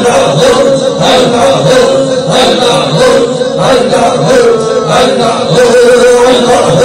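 Male voices chanting a devotional chant, continuous and loud, with a held note and a regular beat.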